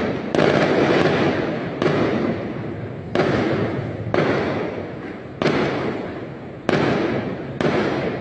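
Aerial fireworks bursting one after another: seven sharp bangs about a second apart, each trailing off in a long fading echo.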